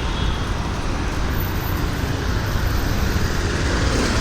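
City road traffic: a steady, dense wash of vehicle engines and tyre noise with a low rumble, with no single vehicle standing out.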